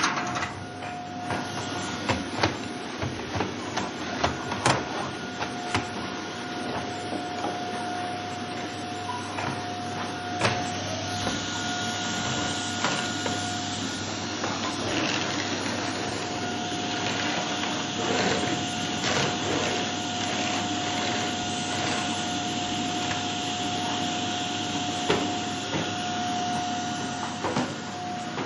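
Vacuum cleaner running steadily on a wooden floor: a constant motor whine over a rush of air, with scattered clicks and knocks. The rush of air grows louder about ten seconds in.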